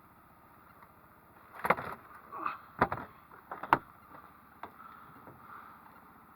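Small boat's outboard motor running steadily at slow backtrolling speed. About two to four seconds in come several sharp thuds, louder than the motor.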